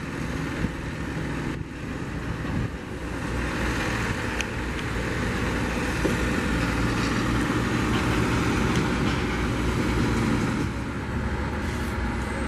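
Jet aircraft engine noise at an airport: a steady rumble with a hiss. It grows louder over several seconds and drops back near the end.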